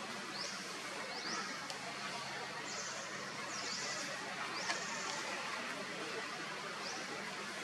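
Birds chirping: short, high, upward-sweeping chirps about once a second, a few held a little longer, over a steady outdoor hiss.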